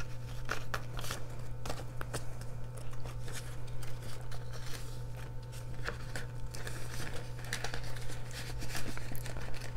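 Paper banknotes and a clear plastic binder pocket rustling and crinkling as hands slide a stack of bills into the pocket: many small, irregular rustles over a steady low hum.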